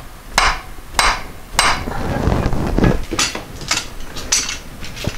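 Hammer blows driving a large screw extractor into a deformed Allen bolt in the crankshaft pulley: three sharp metal-on-metal strikes about half a second apart, then lighter taps.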